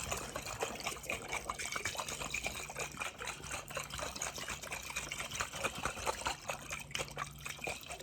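Close-miked water trickling and splashing in quick, irregular splashes.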